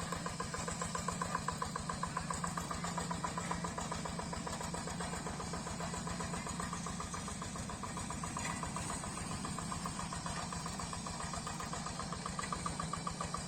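Yanmar single-cylinder diesel engine of a Quick G3000 Zeva two-wheel hand tractor running steadily with a fast, even chug.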